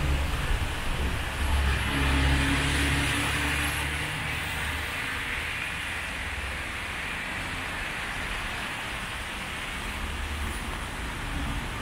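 Traffic on a rain-wet city street: a vehicle's engine hum and tyre hiss pass close in the first few seconds, then settle into a steady wash of traffic noise.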